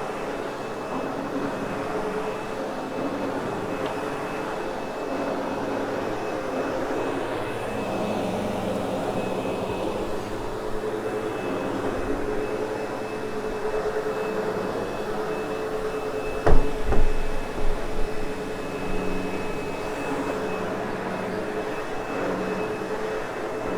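Sebo X8 upright vacuum running steadily over loop carpet, its motor whine holding a steady pitch. About two-thirds of the way through, a short cluster of several louder thumps.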